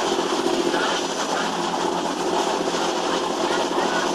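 Twin Iveco N67 six-cylinder diesel engines of an 11-metre catamaran running steadily under way, mixed with the rush of the churning wake.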